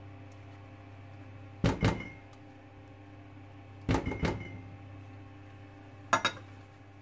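A spatula knocking and scraping against a ceramic slow-cooker crock of hot-process soap batter, in three short clatters about two seconds apart, some with a brief ring. A steady low hum runs underneath.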